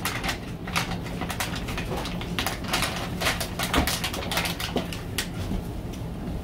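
Plastic candy wrapper crinkling and crackling in irregular bursts as a stiff bag of Kit Kat Minis is worked open by hand, with a steady low hum underneath.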